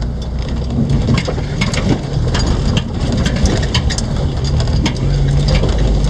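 A Jeep driving slowly up a rocky gravel wash: a low engine drone under the steady crunch of tyres over loose stones, with frequent sharp clicks and knocks from rocks and the rattling vehicle.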